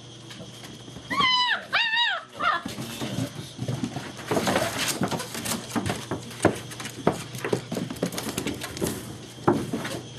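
German Shepherd puppies at play: two or three high, arching whimpering yelps about a second in, then a long run of scuffling and knocking as they tussle.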